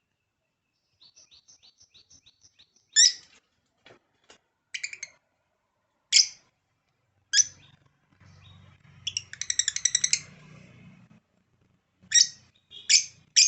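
Lovebird calling: a quick run of soft chirps, then sharp, shrill single calls every second or so, a rapid chattering burst about nine seconds in, and a string of sharp calls near the end.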